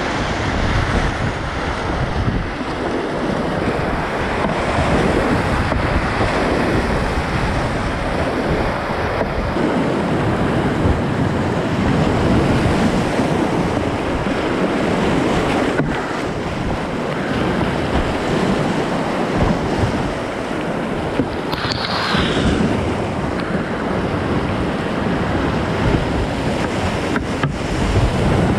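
Whitewater of a small river in spate churning through a steep rocky rapid, heard from a kayak in the middle of it: a loud, steady rush of water.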